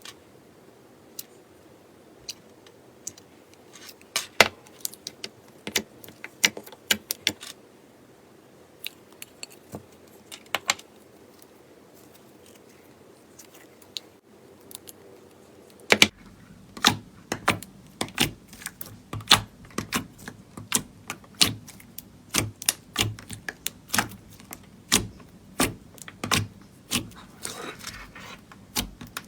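Slime being pressed and worked by hand, making sharp, irregular clicks and pops. About 16 seconds in the background changes and the clicking turns much denser.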